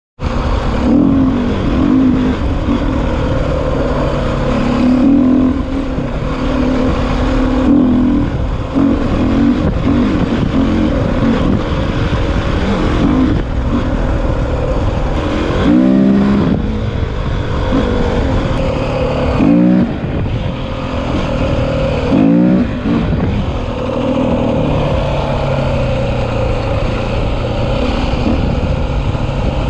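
KTM 450 dirt bike's single-cylinder four-stroke engine running under way, with wind noise over the microphone. About halfway through, the engine revs up sharply three times, a few seconds apart, and drops back each time.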